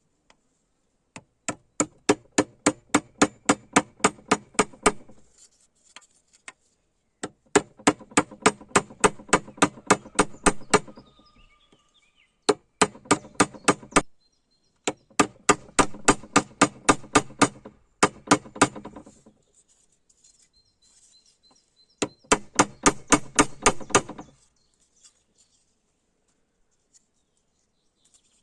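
Hammer striking rapidly and evenly, about five blows a second, in five bursts of three to four seconds with short pauses between.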